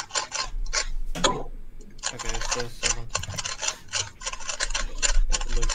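3x3 speedcube being turned rapidly: a dense run of quick plastic clicks, several a second, with a short pause about a second and a half in.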